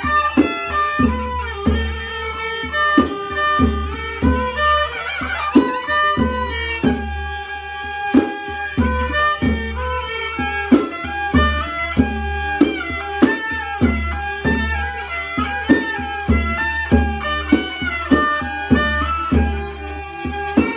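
Northern Khmer kantrum folk music played by a mahori ensemble: a bowed fiddle melody over a steady beat of hand drums.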